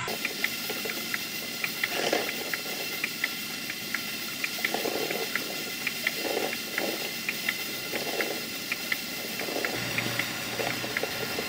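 Stuart Twin Victoria model steam plant running under steam: a steady hiss of steam with light, sharp clicks about three a second and soft irregular puffs of exhaust every second or so.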